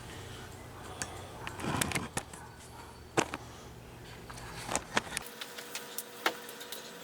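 Product packaging being opened and handled by hand: scattered sharp clicks and taps of plastic and cardboard, with a short rustle about two seconds in. A low background hum cuts off about five seconds in.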